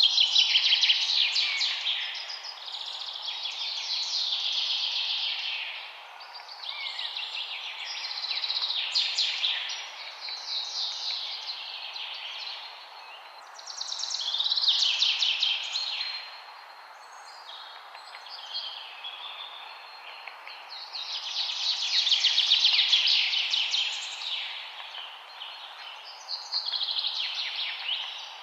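Songbirds singing in repeated phrases of rapid high notes, each phrase lasting a few seconds, over a steady background hiss.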